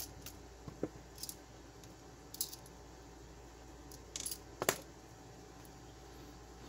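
Scattered small clicks and clinks of a precision screwdriver and small screws on a plastic clamp-meter case and a wooden bench as the case is taken apart, with a quick cluster of clicks and the loudest clack just under five seconds in.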